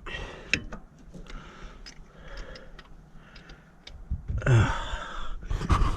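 Irregular light clicks and taps of tools and parts being handled. A voice speaks briefly about four and a half seconds in.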